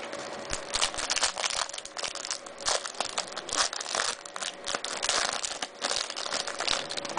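A trading card pack wrapper being torn open and handled, a continuous crinkling and crackling with many small sharp crackles.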